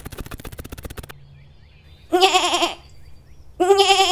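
Two wavering, goat-like bleats serving as a llama character's voice, the first about two seconds in and the second starting near the end. Before them comes a rapid clatter that stops about a second in.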